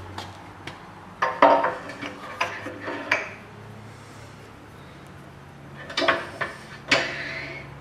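Cast-iron wood lathe tailstock being slid and handled on the lathe bed, metal clanking and scraping on metal: a cluster of clanks about a second in, more up to about three seconds, and two sharp clanks near the end.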